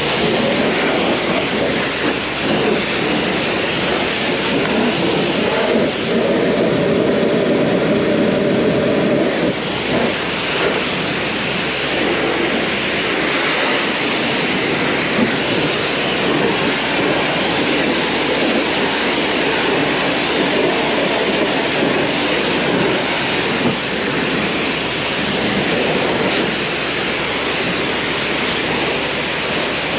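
Pressure washer lance spraying a high-pressure jet of water onto a tractor's bodywork and tyres: a steady, loud hiss and splatter that shifts as the jet moves over the panels. A humming tone joins in for about three seconds, about six seconds in.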